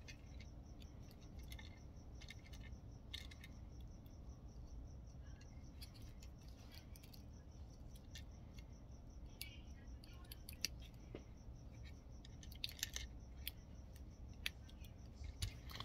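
Faint, scattered light clicks and taps as a printhead and its silicone molds are handled and fitted together, with a few quicker clusters of clicks in the second half, over a low steady room hum.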